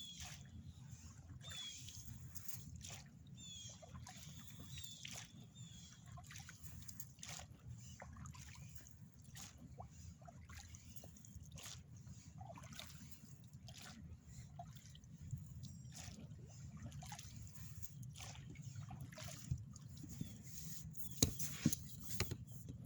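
Faint sloshing, trickling and small splashes of oars dipping and dripping as a small inflatable boat is rowed, over a low steady rumble. The splashes get louder near the end.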